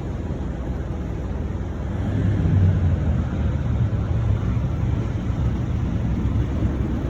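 Jet airliner engines rumbling, a low steady noise that swells about two seconds in.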